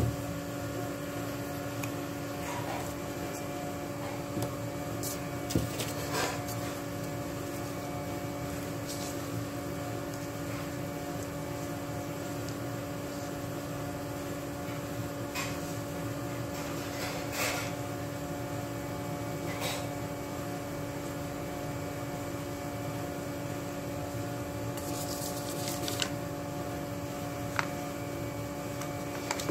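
A steady electrical or mechanical hum carrying a few steady tones, with a scatter of brief taps and rustles from paper being handled and cut-out pieces being laid down.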